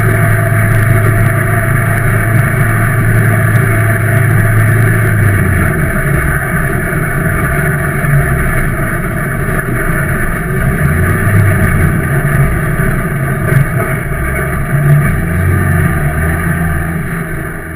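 Ministock race car's engine heard from inside the cabin, holding a steady note for about five seconds, then dropping to a lower, uneven running as the car slows.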